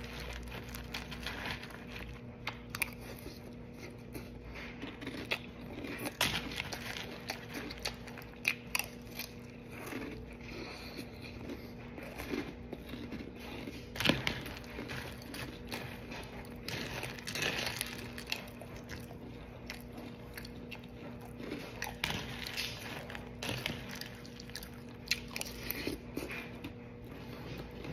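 Close-up chewing of Cap'n Crunch cereal, with irregular crunches as mouthfuls are bitten and ground. A faint steady hum runs beneath.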